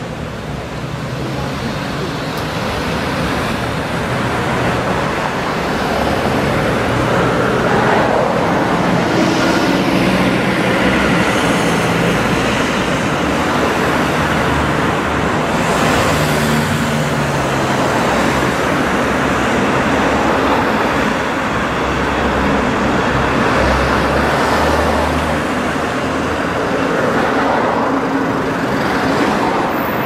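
Steady road traffic on a multi-lane city avenue: cars, vans and buses passing with engine and tyre noise, growing louder over the first few seconds, with a few vehicles swishing past closer along the way.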